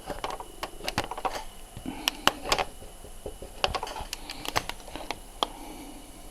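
Irregular light clicks and taps from handling, scattered through with no steady rhythm.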